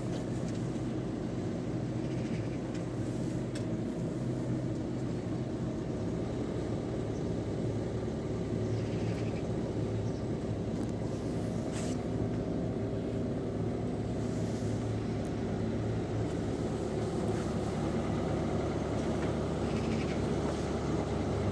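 Steady low hum of engines idling, unchanging throughout.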